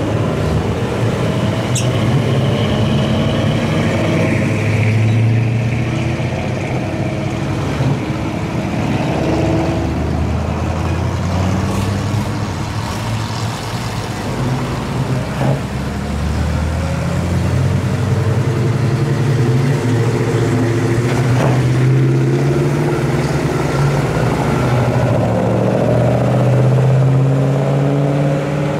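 Classic cars and an old pickup driving slowly past one after another, their engines running loud with a low exhaust note that rises and falls as each one goes by. Among them a 1956 Chevrolet and a 1950s Chevrolet pickup.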